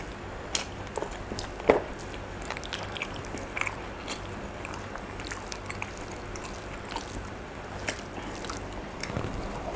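Close-up chewing of a mouthful of rice, squid sambal and beef rendang, with scattered small wet clicks and smacks and a few sharper ones, as fingers pick through rice on a wooden board.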